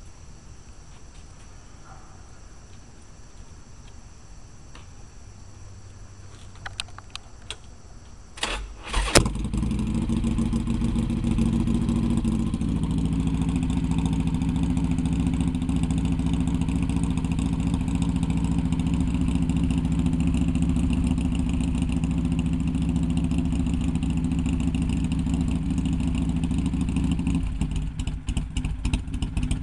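Harley-Davidson Sportster's air-cooled V-twin starting: a few faint clicks, then a brief crank and the engine catches about nine seconds in, settling into a steady idle.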